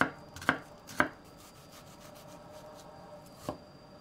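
Kitchen knife coarsely dicing an onion on a cutting board: three sharp knocks about half a second apart, a pause of about two seconds, then one softer knock near the end.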